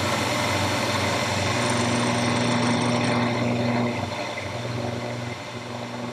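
Jet JMD-18 mill-drill running with its spindle at 1600 RPM, turning a 3/8-inch carbide end mill as it is fed down toward a steel shaft: a steady machine hum with a hissing whir, easing off a little about four seconds in.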